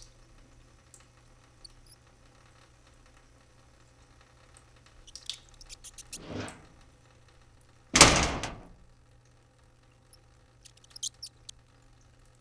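Cartoon rat sound effects: short squeaks and scuffles, a swelling rush of noise, then one loud heavy crash about eight seconds in that dies away over most of a second, followed by a few more quick squeaks.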